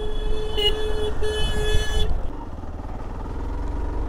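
A vehicle horn honking about four short times in quick succession during the first two seconds, a single steady pitch each time. Under it runs the low, constant rumble of a motorcycle on the move.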